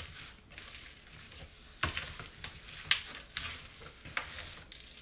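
A hand squishing and kneading seasoned raw ground sausage meat in a disposable aluminium foil pan: an irregular wet squelching, with a few sharper squishes through the middle.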